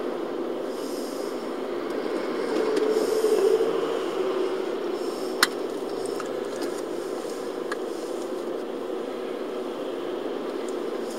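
Steady low drone of traffic heard from inside a car waiting in a queue, swelling for a couple of seconds about a quarter of the way in as a lorry pulls past alongside. A single sharp click about halfway through, then a few faint ticks.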